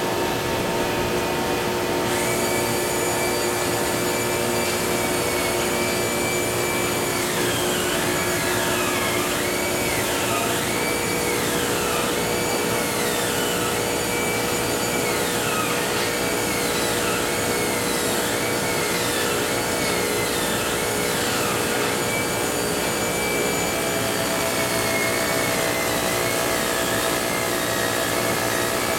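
Blown-film line for PVC shrink film running: steady machine noise with motor hum from the extruder, blower and film winder. Through the middle stretch a high tone wavers up and down, coming and going.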